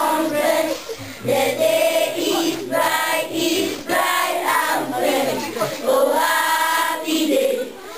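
A class of schoolchildren singing together in a group, in a string of sung phrases with short breaks between them.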